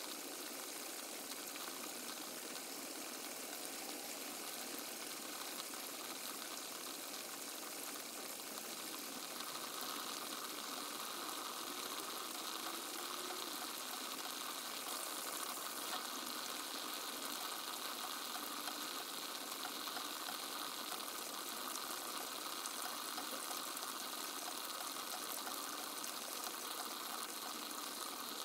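Steady hiss of rain, growing slightly louder about ten seconds in.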